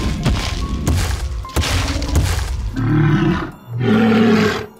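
Cartoon sound effects over background music: a noisy rush with several knocks, then two growling roars from a cartoon dinosaur, the first about three seconds in and the second just before the end.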